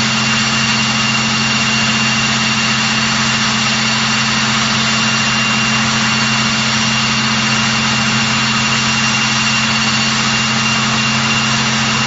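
Vickers Vanguard (Merchantman) airliner's Rolls-Royce Tyne turboprop engines running steadily on the ground: a steady high turbine whine over a low drone.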